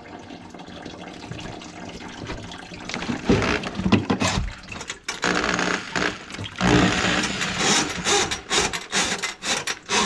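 Drum-type drain auger driven by an electric drill, running in short stop-start bursts from about three seconds in as its cable turns inside a kitchen sink drain clogged with grease.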